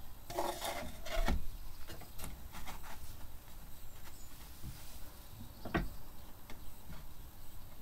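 Thin board panels of a dolls house being handled and set in place on a workbench: a cluster of scrapes and knocks in the first second or so, a few light taps, and one sharper knock near the end.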